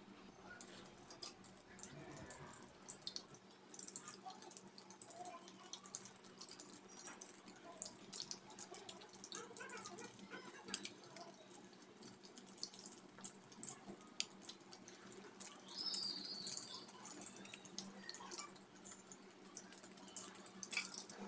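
Egg-dipped kabab shallow-frying in hot oil in an iron wok: faint sizzling with frequent small crackles and pops, with a steady low hum underneath.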